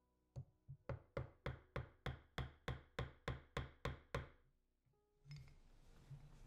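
A run of about a dozen evenly spaced knocks, about three a second, each with a short ringing tail, ending just after four seconds in.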